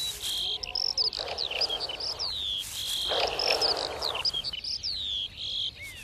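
European nightjar hissing twice, each hiss about a second long: a threat hiss to drive off a magpie near its nest. Small birds chirp throughout with quick high whistles.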